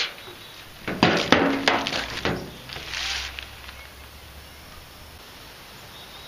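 A sharp click, then a quick run of plastic clicks and knocks about a second in, with a brief hiss shortly after: a small electric chainsaw and a plastic jug of bar-and-chain oil being handled while the saw's oil reservoir is topped off.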